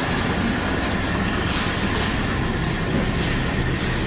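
Diesel railcar idling while standing at the platform, a steady low drone heard inside the carriage.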